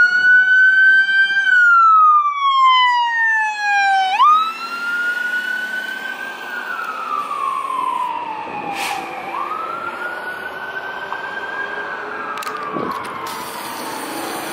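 Siren of a 2021 Pierce Impel fire engine wailing: the pitch jumps up, holds, then slides slowly down, repeating every four to five seconds. It is loud for the first few seconds, then quieter as the engine pulls away down the street.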